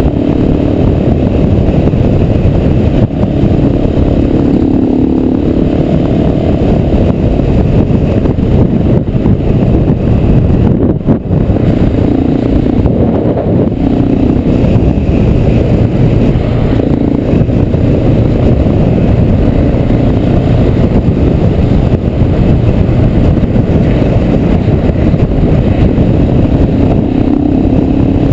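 KTM 690 SMC R's single-cylinder four-stroke engine running at road speed. Its note shows now and then through a steady wind rumble on the bike-mounted microphone.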